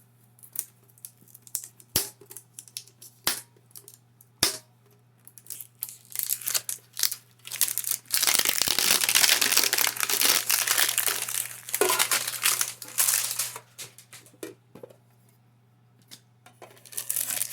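Packaging of a Pokémon trading-card product being handled, torn open and crumpled. Scattered clicks and taps come first, then a few seconds of loud crinkling from about eight seconds in, then more handling clicks.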